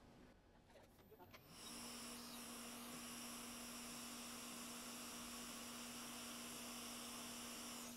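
Hot air rework station starting to blow about a second and a half in: a steady hiss of air with an even hum from its fan, heating an inductor on a donor board so it can be lifted off with tweezers.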